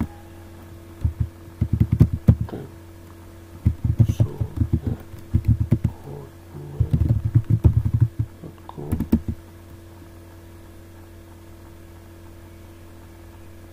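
Computer keyboard typing in quick runs of keystrokes that stop about nine seconds in, over a steady low electrical hum.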